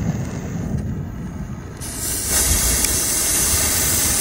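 A low rumble, then a steady hiss that starts suddenly about two seconds in: the lit fuse of a Master Ballistic firework rocket burning and spitting sparks.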